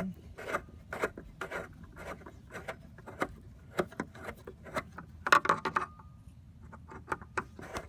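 Hand screwdriver turning a screw plug in a tail light mount, a string of irregular scraping clicks with a louder scrape about five and a half seconds in. The plug spins in its hole instead of backing out, so it has to be held still to unscrew.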